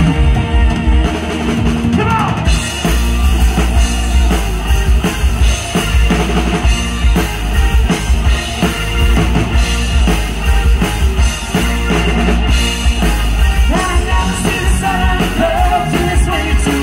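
Live rock band playing loud through a PA: pounding drum kit and electric guitars, with a singer's voice coming in at times.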